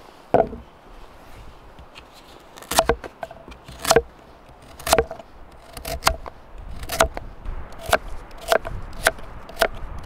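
Crinkle-cut knife slicing raw carrots into rounds on a wooden cutting board: a series of sharp chops as the blade goes through and hits the wood, about one a second at first and quicker toward the end.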